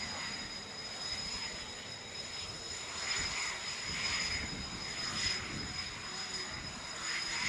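Kawasaki T-4 jet trainers taxiing past one after another, their twin IHI F3 turbofans running at taxi power with a steady high whine over a rushing jet noise.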